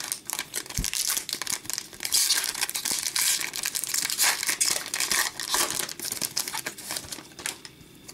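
Shiny wrapper of an Upper Deck hockey card pack being torn open and crinkled by hand: a dense crackling that dies away about seven and a half seconds in.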